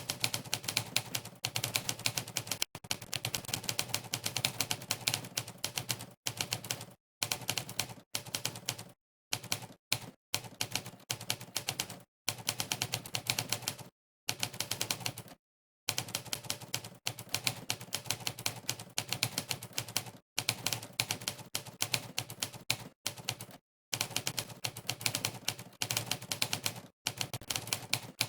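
Typewriter keystroke sound effects, one clack for each key pressed during fast typing, in quick runs broken by several short gaps of complete silence.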